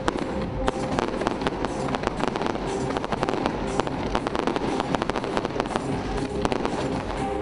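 Large crowd cheering and applauding, with dense sharp claps throughout.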